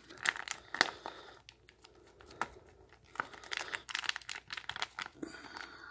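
Small MRE peanut butter pouch kneaded between the hands, its foil packet crinkling in irregular crackles as the separated oil is worked back into the peanut butter.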